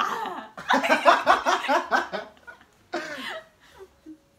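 A woman laughing in quick repeated bursts, about six or seven to the second, with a shorter laugh about three seconds in.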